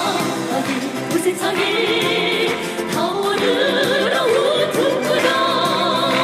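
Women's voices singing held notes with vibrato over full band accompaniment.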